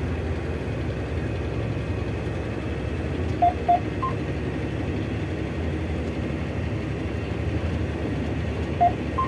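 John Deere tractor's diesel engine running steadily under load inside the cab, pulling a large, heavy seed drill. A few short electronic beeps sound about three and a half seconds in and again near the end.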